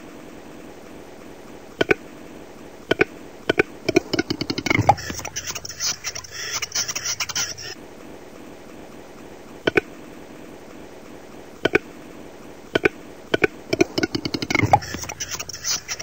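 Male western capercaillie's display song, heard twice: single clicks spaced a second or so apart speed up into a rapid rattle that ends in a loud pop, followed by about three seconds of scraping, hissing whetting.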